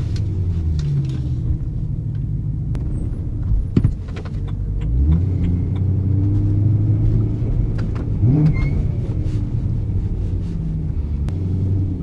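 BMW E92 M3's V8 engine running at low revs, heard from inside the cabin while driving through town. Its note steps up about five seconds in and rises briefly about eight seconds in, with a few light clicks in the cabin.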